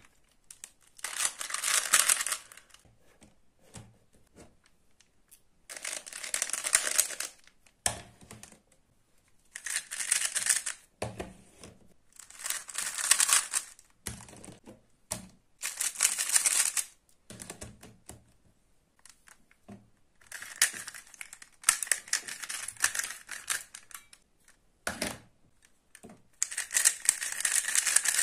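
Plastic 3x3 puzzle cubes turned rapidly by hand: layers clicking and clattering in about eight quick bursts of one to two seconds each, with short pauses between.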